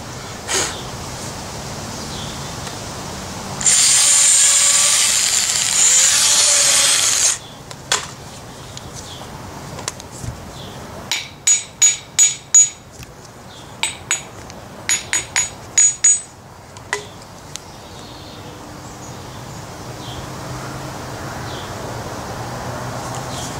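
A power drill runs for about three and a half seconds, boring into the old wooden handle stub left in a sledgehammer head. Later, a small hammer strikes about a dozen times, first five quick blows and then more spaced ones, each with a slight ring, as the stub is knocked out of the head's eye.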